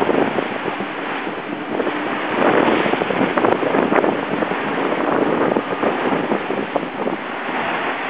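Rushing water and spray off the hull of a Class 40 racing yacht sailing fast through the waves, with wind buffeting the microphone. The noise swells and eases as spray comes over the deck.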